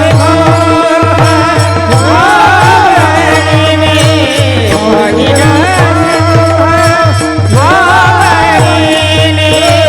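Marathi kirtan music: a singer holds a drawn-out, gliding wordless vocal line over a steady drone, with regular drum strokes keeping the beat.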